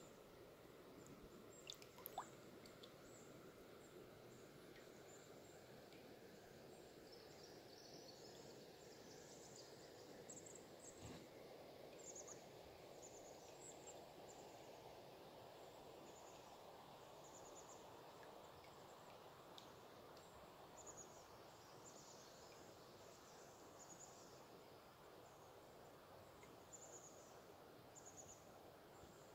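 Faint, soft rush of glacial river water, with short high bird chirps repeated throughout. A couple of light knocks come about two seconds in.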